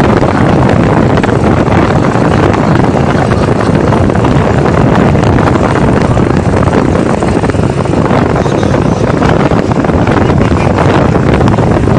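Steady rush of wind on the microphone mixed with small motorbike engines running at road speed.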